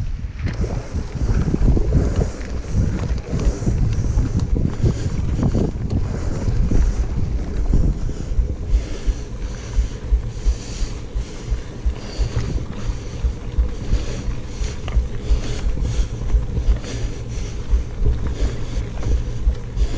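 Mountain bike rolling along a dirt singletrack, with wind buffeting the microphone in a steady low rumble and frequent short clicks and rattles from the bike over the trail, coming more often in the second half.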